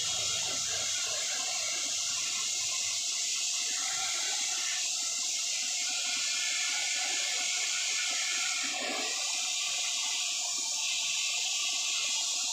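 Jet of water from a car-wash hose nozzle spraying against a car's tyre and wheel arch: a steady hiss.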